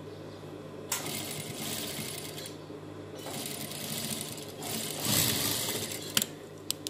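Sewing machine stitching a cuff onto a dress sleeve, running in three short runs with brief stops between them, the last run the loudest, then a couple of sharp clicks near the end as it stops.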